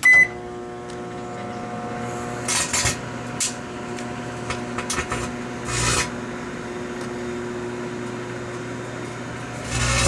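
Microwave oven starting with a short beep, then running with a steady hum. Several short crackles of electrical arcing break out from about two and a half seconds in, with a louder burst near the end, as the credit card's RFID antenna and chip burn up in the microwaves.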